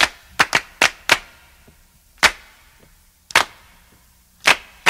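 Sharp handclaps alone in a sparse, syncopated pattern, a quick cluster at first and then single claps about a second apart. This is the unaccompanied clapping intro of a disco-funk record, before the band comes in.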